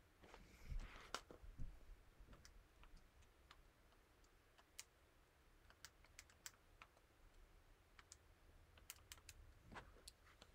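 Faint, irregular clicks of calculator keys being pressed while working out a division.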